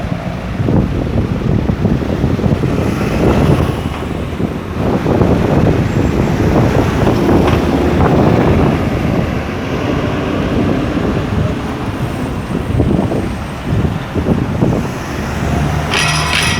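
Street traffic: engines of passing vehicles rumbling steadily, with wind buffeting the microphone. A brief high-pitched squeal or tone sounds near the end.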